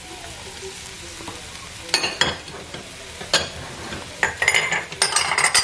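Chopped vegetables sizzling in a hot Dutch oven, with a spoon clinking and scraping against the pot as they are stirred; the clinks come thick and fast over the last second or so.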